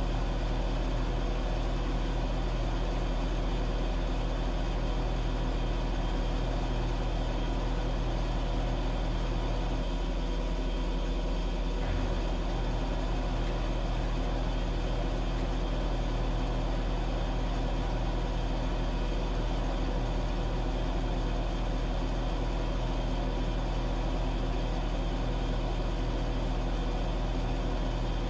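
Washing machine running with a steady low mechanical hum. The hum briefly changes about ten seconds in, with a faint click around twelve seconds.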